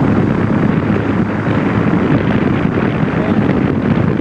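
Wind buffeting a camcorder microphone over a steady low engine drone, as from a tour boat's motor.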